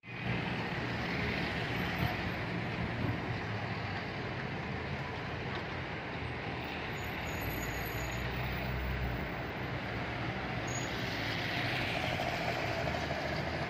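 Street traffic noise: cars, a van and mopeds driving past with engines running, with a heavier low engine rumble from about seven to nine seconds in.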